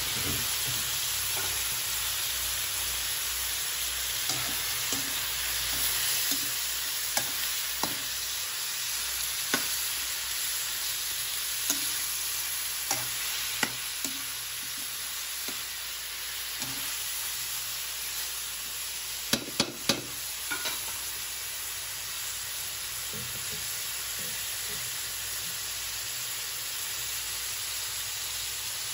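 Native chicken pieces frying in a wok with a steady sizzle, while a utensil stirring them knocks and scrapes against the pan in scattered sharp clicks, three loud ones in quick succession about 19 seconds in.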